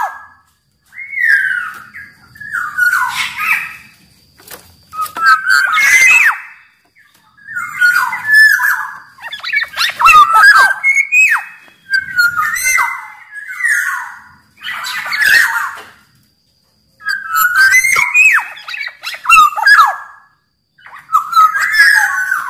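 Black-naped oriole singing in short whistled phrases mixed with harsher, sharper notes, about one phrase every two seconds with brief pauses between.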